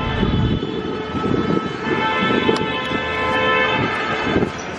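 Wind buffeting the microphone over city street noise, with a steady chord of held tones in the background that fades out near the end.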